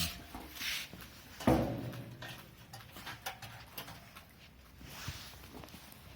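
Knocks and clanks from gas grill parts being handled during reassembly, with one loud metallic clunk about a second and a half in that rings briefly, and lighter clicks and rustles around it.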